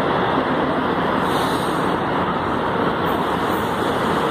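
A São Paulo Metro fleet G train standing at the platform with its doors open, giving off a steady, even hum and hiss.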